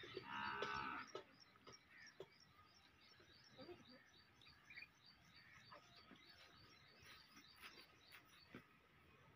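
A farm animal calls once, about a second long, just after the start. Faint, rapid high chirping runs underneath it, with soft scattered farmyard sounds at a low level.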